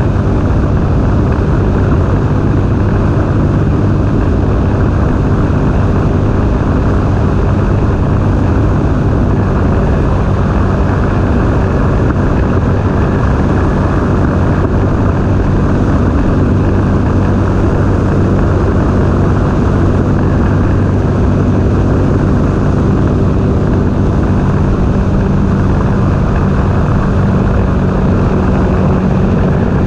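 Sea-Doo Spark personal watercraft's three-cylinder Rotax engine running steadily under way at cruising speed, a loud, even drone that holds the same pitch throughout.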